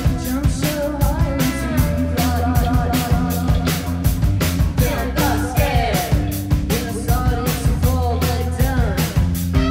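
Live rock band playing: a steady drum beat, a deep bass line, electric guitar and synth keyboard, with a melody line that slides between notes over the top.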